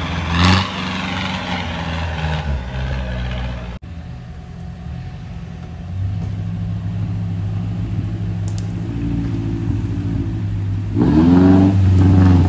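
Off-road vehicle engines running at low revs on a dirt trail. The sound changes abruptly about four seconds in, then a small 4x4's engine pulls steadily and revs up near the end as it climbs over a hump.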